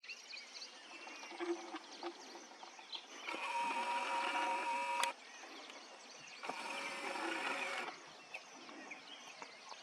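A small motor whining in two steady bursts, the first about two seconds long and the second a little shorter, each starting and stopping abruptly, over faint bird chirps.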